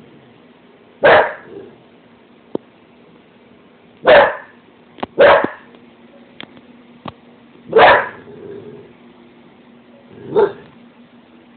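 English bull terrier barking at her own reflection in a stove's glass door: five loud single barks, a few seconds apart.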